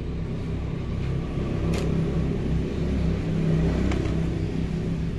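A steady low engine rumble that swells toward the middle and eases off, with a couple of faint clicks from pieces of crushed red brick being pressed into a plastic tub by hand.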